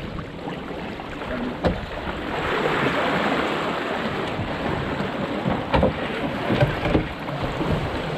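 Water rushing along the hull of a National 18 sailing dinghy under way, with wind buffeting the microphone, swelling about two seconds in. A few sharp knocks of crew and gear on deck cut through it.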